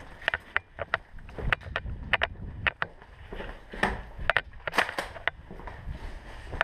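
A player moving fast with a head-mounted camera: low rubbing and rumbling handling noise, with many sharp, irregular clacks throughout.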